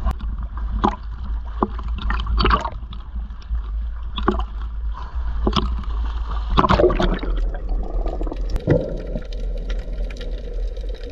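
Water splashing and sloshing, with irregular splashes over a steady low rumble; the strongest splash comes about two-thirds of the way through.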